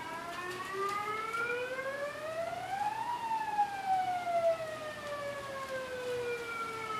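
A siren wailing, not very loud. It sounds a little like a tornado siren but is too quiet to be one. Its pitch rises steadily for about three seconds, then falls slowly through the rest.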